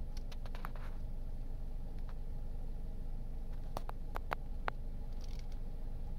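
Hands grabbing and swinging along metal playground monkey bars: a few light clicks near the start, then about five sharp taps within a second, about four seconds in, over a steady low rumble.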